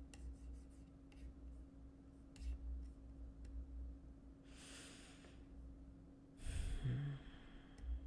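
A few faint keyboard taps, then two breaths close to the microphone: a long exhale like a sigh about halfway through and another breath near the end. A faint steady hum runs underneath.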